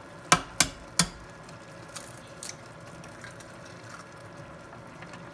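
An egg cracked open with three quick, sharp taps against the rim of a stainless steel saucepan, then dropped into the ramen, with the pot simmering faintly behind.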